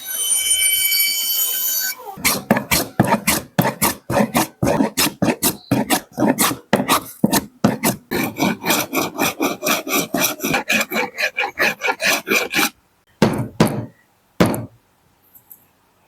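Rasp or file worked back and forth on the wood of a cricket bat being rebuilt with a new handle, in quick even strokes at about four a second, ending in two separate strokes. A steady ringing tone sounds for the first couple of seconds.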